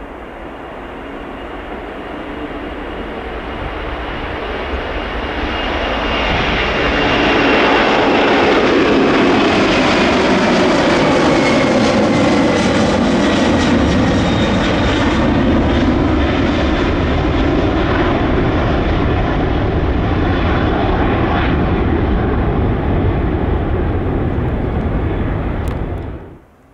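Boeing 747-400F freighter's four jet engines at takeoff power, growing louder over the first several seconds, with a high whine that slides down in pitch as the aircraft passes. The sound cuts off suddenly near the end.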